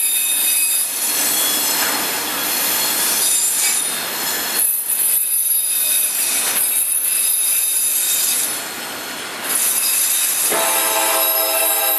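Freight train of autorack cars rolling past close by: a steady rumble and rattle of steel wheels, with high-pitched wheel squeal ringing over it. About ten and a half seconds in, a lower steady chord of several tones joins.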